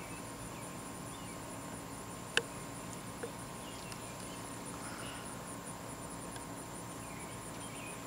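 A steady, high-pitched insect trill, pulsing rapidly, over a faint outdoor background, with a single sharp click about two and a half seconds in.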